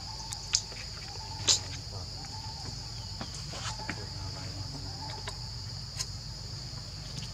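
Steady high-pitched insect chorus, with a few sharp clicks, the loudest about half a second and a second and a half in.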